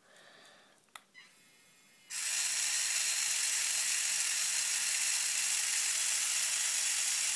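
Handheld 3D printing pen's filament feed motor starting about two seconds in and running with a steady high whir as it pushes ABS plastic through the heated nozzle. A small click comes about a second in.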